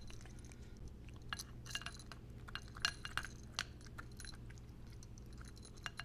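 Cat eating close to the microphone: loud, irregular chewing clicks and smacks, with a few light clinks mixed in.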